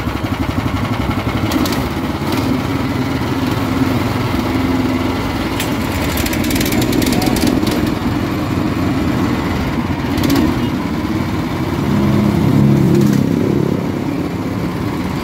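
Small single-cylinder gasoline engine (13 hp, 390 cc) of a Tigon TG-CC450 walk-behind asphalt cutter running steadily, swelling a little louder for about a second near the end.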